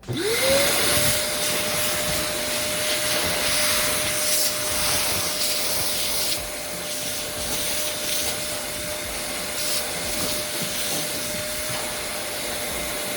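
A small electric motor starts up, rising quickly to speed, then runs at a steady pitch with a hiss, and cuts off at the end.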